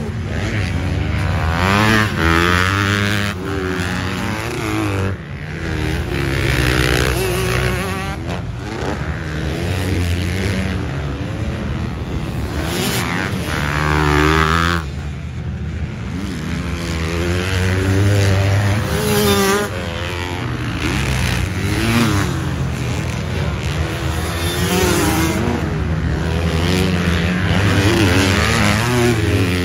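Motocross dirt bike engines revving, their pitch rising and falling again and again as the bikes accelerate and back off round the track, with several running at once.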